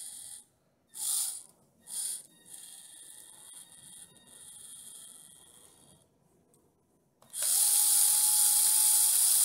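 Small brushed motor-on-axle units of a 1/24 rock crawler spinning its wheels in the air: a few short throttle blips, a lower-speed whir, a brief pause, then about seven seconds in both motors run up to full forward throttle with a loud steady high whine.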